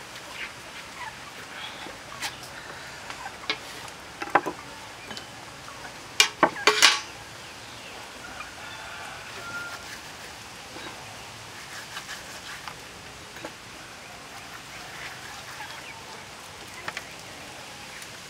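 Salmon-head pieces being handled on a wooden cutting board, with a few sharp knocks, the loudest a quick cluster about six to seven seconds in, then quieter handling as salt is sprinkled and rubbed into the fish by hand.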